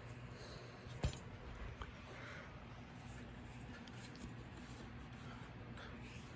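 Quiet handling noise: one sharp click about a second in and a few faint small ticks over a low steady hum.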